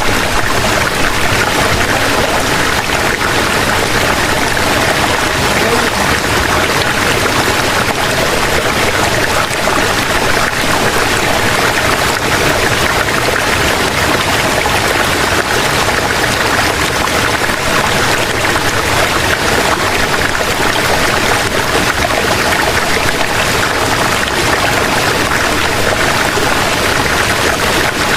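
Steady rush of falling water from a waterfall in the gorge, an even unbroken roar with no change.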